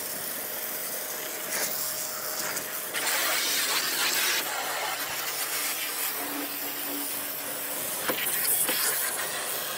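Water jet from a portable electric pressure washer's spray gun, a steady hiss as it blasts dirt off a car's wheel well and front bumper, getting a little louder about three seconds in.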